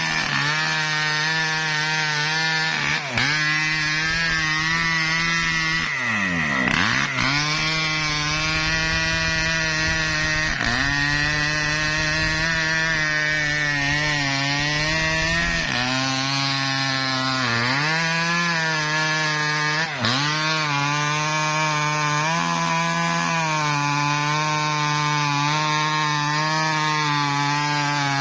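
Chainsaw running at high revs while cutting mahogany. Its engine pitch sags under load and recovers several times, with one deep drop and rev back up about six seconds in.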